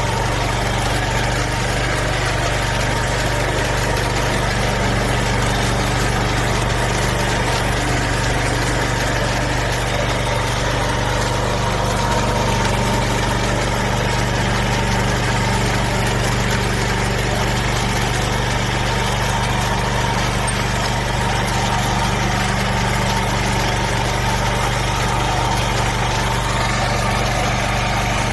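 Four-wheel-drive mini tractor's engine running steadily at a constant speed, an even low hum with no change in pace.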